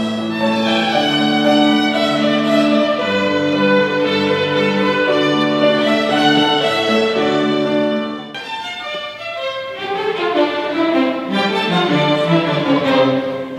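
A children's violin ensemble playing in unison, bowing long held notes. About eight seconds in the music changes abruptly to a slightly quieter passage of quicker, shorter notes.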